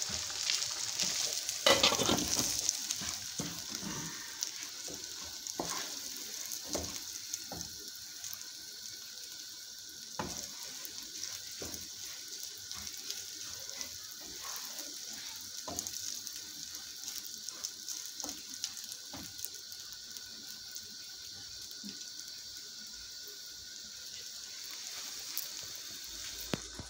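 Rice and bulgur toasting in oil in a frying pan, with a steady sizzle. A wooden spoon stirs the grains, with irregular scrapes and taps against the pan.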